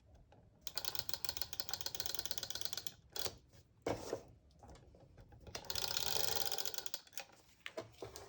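E-Z Runner adhesive tape runner drawn along paper twice, each pass a rapid run of clicking lasting about two seconds, with a few separate taps between the passes.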